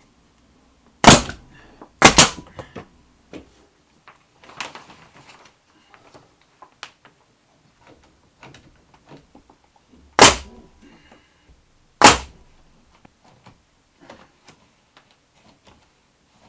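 Four loud, sharp impacts with small knocks and handling rustles between them, from work fastening pine tongue-and-groove boards to a wall. Two come about a second apart just after the start, and two more about ten and twelve seconds in.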